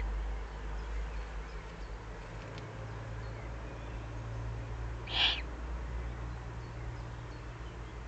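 Eurasian eagle-owl chick giving one short, rasping, hiss-like begging call about five seconds in, over a steady low hum.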